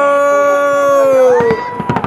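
A person cheering with one long held shout that dips in pitch near its end. A second high-pitched cheer joins about a second and a half in, and fireworks bang several times near the end.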